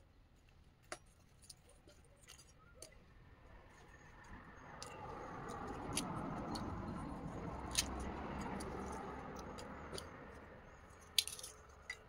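Small clicks and clinks of charcoal and metal being handled at a forge, scattered throughout. A soft rushing noise swells up about a third of the way in and fades away near the end.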